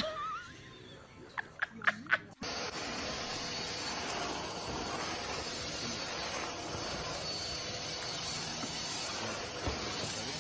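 A few sharp clicks, then, starting suddenly about two and a half seconds in, a stick vacuum cleaner running with a steady, even hiss.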